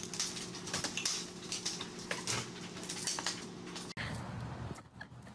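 Small dog scrambling out past a baby gate and wire pen, with many quick light metallic clinks and clicks over a steady low hum; the hum and clinking stop at a cut about four seconds in, leaving quieter sound.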